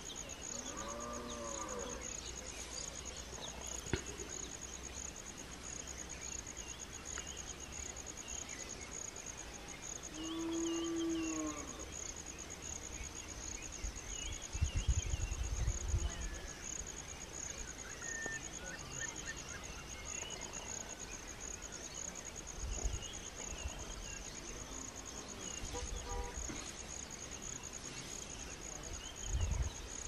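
A cow mooing twice, one call about a second in and a longer, louder one about ten seconds in, over a steady high-pitched insect drone. Small birds chirp faintly now and then, and a few low rumbles come through, the loudest about fifteen seconds in.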